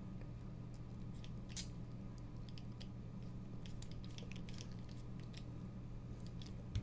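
Faint scattered clicks and light metal scrapes as the parts of a titanium frame-lock folding knife are handled and fitted back together. There is one sharper click about a second and a half in, and a low thump near the end, over a steady low hum.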